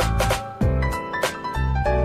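Background music with a steady beat and a deep bass, a beat about every half second or so.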